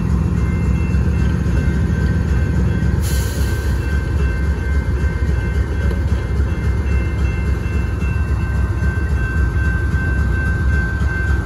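BNSF diesel locomotives passing close by: a loud, steady engine rumble with a thin steady high whine over it, and a sudden hiss about three seconds in.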